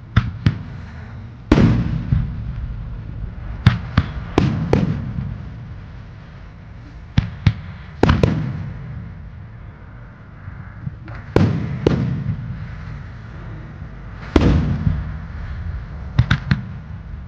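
Aerial firework shells bursting in a wide starmine barrage: sharp booms, some single and some in quick clusters of two or three, each followed by a long echo.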